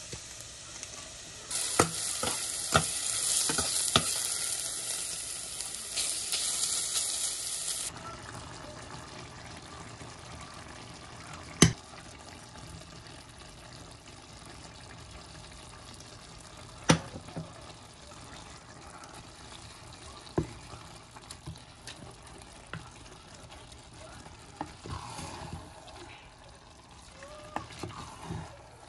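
Pot of rice, chicken and broth simmering with a sizzling hiss, loud for the first several seconds and then cutting off suddenly to a fainter hiss. Scattered sharp clicks and knocks, likely from utensils against the pot.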